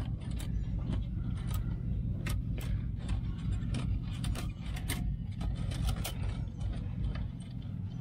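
Scattered light metallic clicks and rattles as hands work over a power seat's frame and wire springs, over a steady low rumble.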